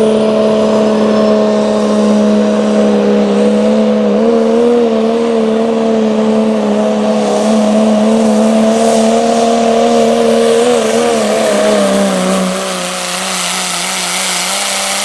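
Second-generation Dodge Ram's Cummins diesel running hard under full load as it pulls a weight-transfer sled. Loud, steady engine note whose pitch wavers a little midway, then drops slightly and gets quieter about twelve seconds in.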